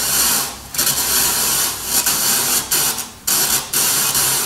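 Loud hiss from a Soundcraft EFX12 mixer channel with its gain at maximum. The hiss cuts out abruptly several times and comes back as the channel's linear fader is slid. The fader is making intermittent contact, which the repairer calls really bad.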